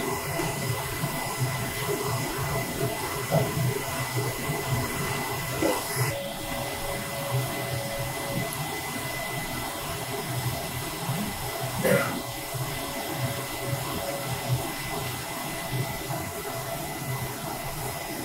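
UV flatbed printer running a strong print-head cleaning cycle: a steady whooshing machine hum, with a click about six seconds in and again about twelve seconds in, each followed by a couple of seconds of a steady whine.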